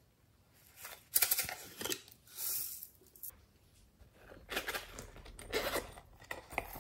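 Hands handling a silicone pop-it zipper purse, making scratchy rustles and crackles in several short bursts, with a brief hiss a little past two seconds in.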